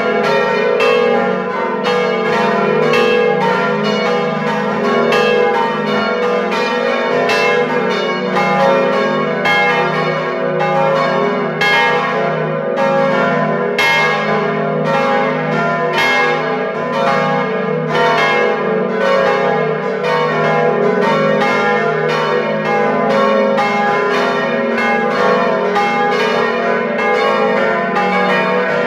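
Five swinging bronze church bells of the Utrecht Dom tower (Agnes minor, Kruisklok, Benignus, Adrianus and Jezus Maria Johannes) ringing together, heard up close in the bell chamber. Their strikes overlap in an unbroken, irregular stream over a steady deep hum.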